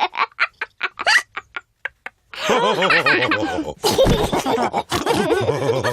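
Cartoon pig characters laughing and snorting: short, spaced laughs that trail off, then, about two seconds in, several voices breaking into laughter together.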